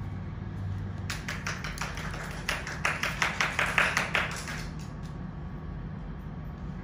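A quick, irregular run of sharp taps lasting about three and a half seconds, starting about a second in and densest near the middle, over a steady low hum.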